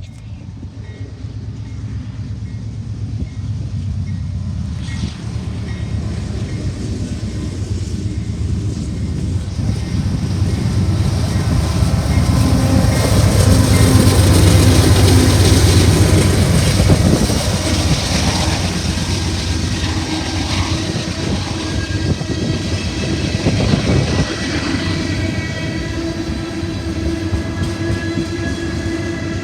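A train passing close by: a deep rumble and clatter of wheels on rail that builds as it approaches, is loudest about halfway through, then goes on steadily as the cars roll past.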